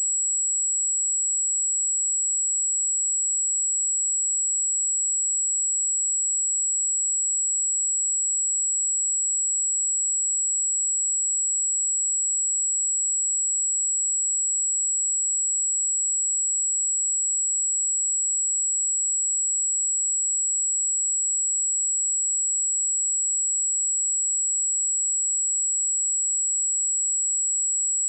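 Steady, continuous high-pitched pure sine-wave test tone at 7748 Hz, unchanging in pitch and loudness.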